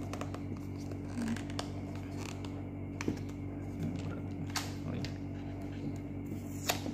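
A small cardboard product box being handled and opened by hand: its seal sticker is picked at and peeled, with scattered short scratches, rustles and clicks of the paperboard. A steady low hum runs underneath.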